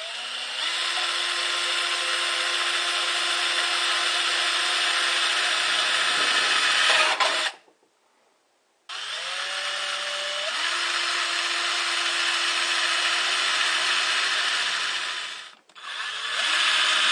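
Handheld power tool cutting a hole in a thin steel food can, in three runs. Each run starts with a rising whine as the motor spins up, then holds a steady pitch under a harsh cutting hiss. There is a short gap about 7.5 s in and another near the end.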